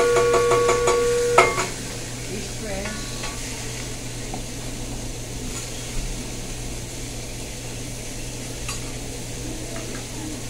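Metal spatulas clacking in a quick steady rhythm on a steel hibachi griddle, with a held ringing tone, until a sharp clack cuts it off about a second and a half in. After that, food sizzling quietly on the griddle with occasional light scrapes, over a steady low hum.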